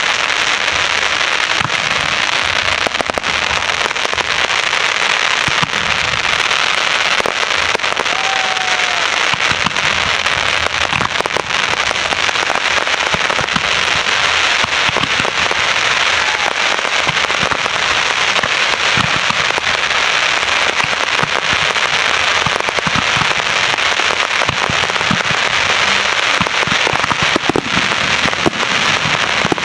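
Aerial fireworks display with dense, continuous crackling and many scattered sharp pops from bursting shells, without a break.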